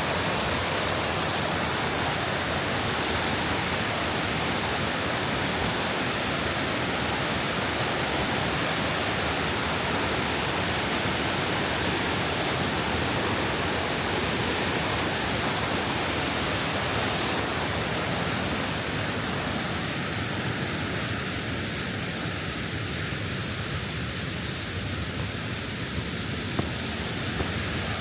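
Steady rushing of a mountain river's cascades and waterfalls, an even wash of water noise.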